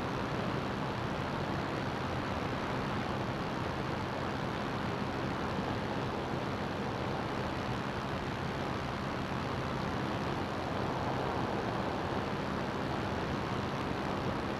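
CGS Hawk ultralight's engine and propeller droning steadily at a constant power setting, under a heavy rush of wind noise.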